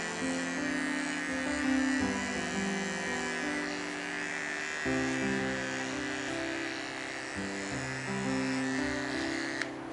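Small pet paw clipper buzzing steadily as it trims the hair on a schnauzer's paw pads and between the toes, cutting off with a click near the end. Background music with held notes plays throughout.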